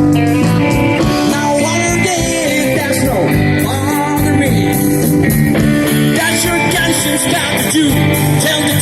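Amateur rock cover band playing live, with a singer over electric guitar, bass and drums.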